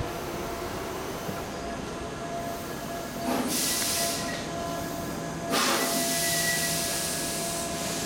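Tobu 8000 series electric train drawing to a stop alongside the platform. Air hisses out twice from its brakes, briefly about three seconds in and longer from about five and a half seconds in.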